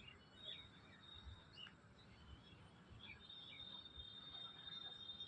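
Faint outdoor ambience: an insect's steady high-pitched trill that stops and starts again about three seconds in, with scattered short bird chirps.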